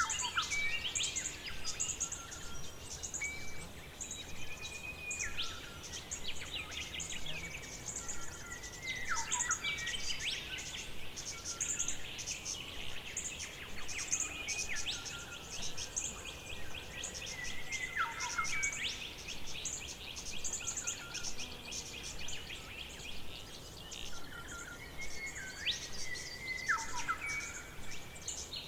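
Forest ambience with several birds singing at once: dense high chirping, held whistled notes, calls that slide downward, and a long fast trill through the middle.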